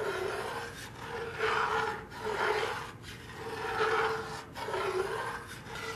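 Metal spoon scraping across the bottom of a cast-iron Dutch oven while stirring a thick, dark flour roux, in repeated strokes about a second apart.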